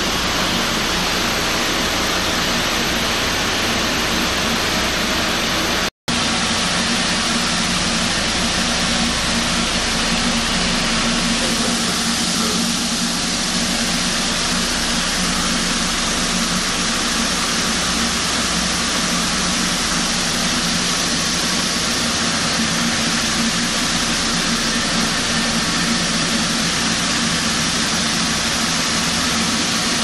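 Vibratory bowl polishing machine running, its load of polishing chips and alloy buckles and buttons churning in the bowl: a loud, steady rushing rattle over a constant hum. The sound drops out for an instant about six seconds in.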